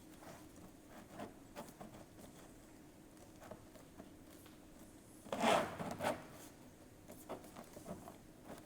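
PVC band with a welding profile being pushed and slid into a steel frame profile: scattered light clicks and rubbing of plastic against metal, with one louder scraping rub about five and a half seconds in.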